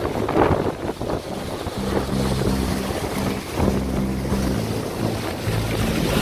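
Wind buffeting the microphone over rushing, churning water as a sailing yacht drives through rough sea under full sail.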